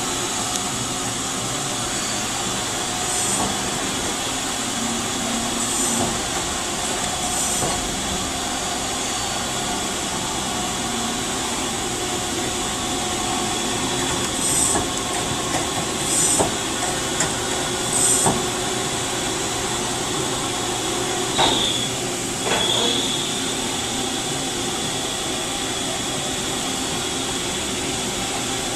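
1990 Mazak QT35N CNC lathe running: a steady machine hum with a thin high whine. Several short hisses come through in the first two-thirds, and there are two clicks near the end.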